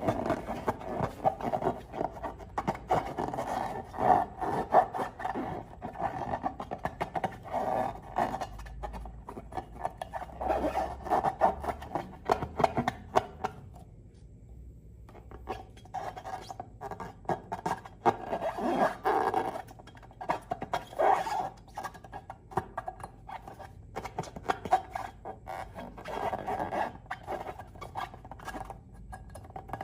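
Slime being squished and worked by hand, a dense run of small sticky clicks and crackles. The sound breaks off for about a second near the middle, then comes back in bouts.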